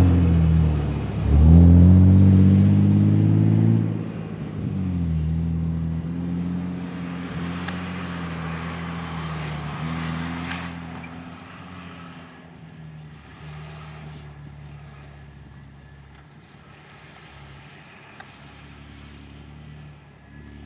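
Toyota Fortuner SUV engine revving hard in soft dune sand, its pitch climbing over the first few seconds. It then settles into a steadier engine note that gradually fades as the vehicle moves off, with a hiss that stops suddenly about ten seconds in.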